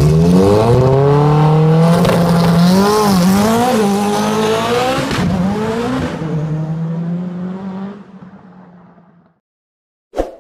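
Lancia Delta Integrale's turbocharged four-cylinder engine pulling away hard, its pitch rising and dipping through gear changes, then fading into the distance. A single short sharp sound near the end.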